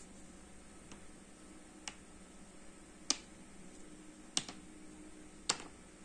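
A few sharp clicks, roughly a second apart, as small pieces of leather, stiff and hard after drying with a hair dryer, are set down and tapped against a plastic cutting mat. A faint low hum runs underneath.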